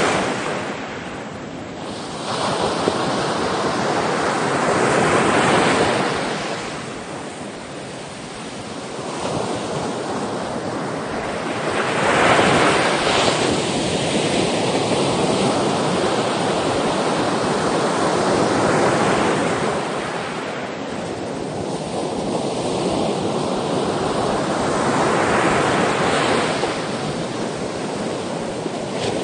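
Sea waves breaking on the shore: the surf swells up and washes back in a slow rhythm, roughly every six or seven seconds.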